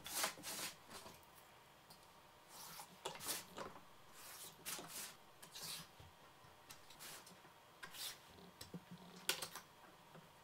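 Pencil scratching short marks on a plywood sheet, mixed with light taps and clicks as a metal marking ruler is set down and slid along the board. Faint, in short separate strokes with pauses between.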